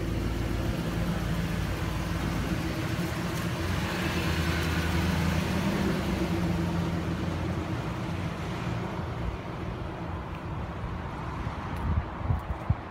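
A Ford F-150's 4.6-litre V8 idling steadily, growing fainter after about eight seconds. A few sharp knocks near the end.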